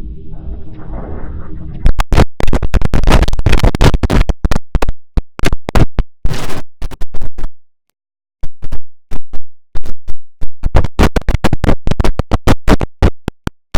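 IBM OS/2 Warp 3 shutdown sound, heavily processed with stacked audio effects: a low, distorted drone, then from about two seconds in it is chopped into loud, rapid stuttering bursts, broken by a short silence a little past the middle.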